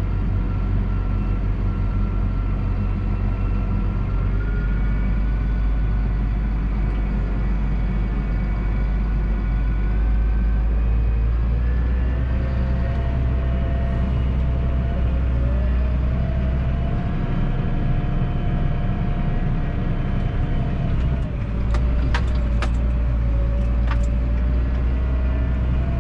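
Massey Ferguson 7718S tractor's six-cylinder diesel engine running steadily, heard from inside the cab as a deep drone. Over it runs a whine that rises in pitch in steps and dips back. A few sharp clicks sound about 22 seconds in.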